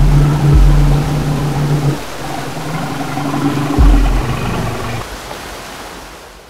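Intro sound design: a loud rushing whoosh with deep booming hits and a low droning tone, fading out over the last second or so.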